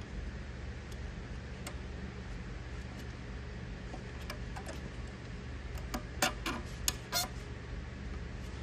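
Sharp plastic clicks and taps from hands fitting the refill hose of a toilet fill valve: a few scattered ones, then a quick cluster about six seconds in, over a steady low hum.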